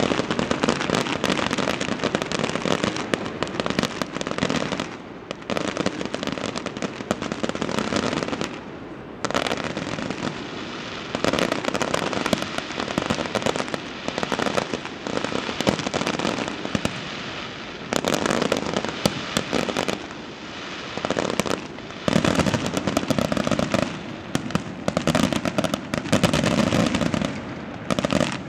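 Fireworks finale: aerial shells bursting in a dense, continuous barrage of bangs and crackling, with a few brief lulls.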